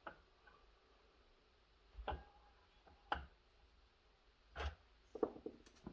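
Faint sharp clicks and light knocks, four spaced about a second apart and a short cluster near the end, as a timing degree wheel on the crankshaft and a piston stop in the cylinder of an Echo CS-670 chainsaw engine are handled.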